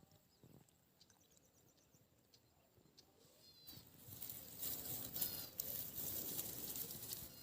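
Outdoor ambience with a bird chirping a few times in short, repeated calls. About halfway through, a louder crackling noise with scattered clicks sets in.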